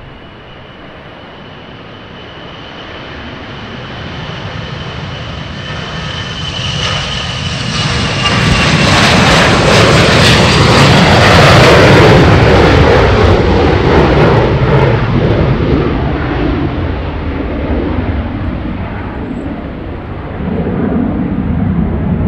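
Gulfstream G650ER business jet's twin Rolls-Royce BR725 turbofans at takeoff power as it rolls down the runway. The sound builds to its loudest about ten seconds in, with a high whine that drops in pitch as the jet passes, then fades, with a smaller swell near the end.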